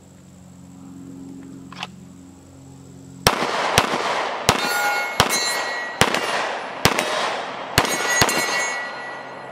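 Glock 19 Gen 5 9mm pistol firing a string of about eight quick shots, starting about three seconds in and spaced a little under a second apart. The steel targets ring with clear metallic tones after the hits.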